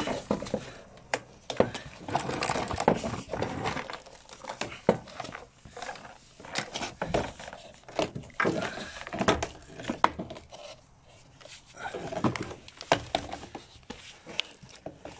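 Side skirt of a Mercedes W201 being pried and pulled off the sill: irregular clicks, knocks and scrapes as the trim works loose from its mounting clips and rubs against the body.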